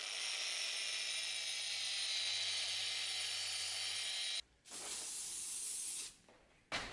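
Wire cup brush on an angle grinder scrubbing rust and patina off a steel round-knife blade: a steady hiss of wire on metal over a low motor hum for about four seconds, then it stops abruptly. After a short gap comes a brief hiss of aerosol spray onto the blade.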